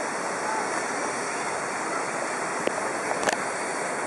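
Small waterfall cascading into a rock pool, a steady rushing of water. Two brief sharp clicks come about three seconds in.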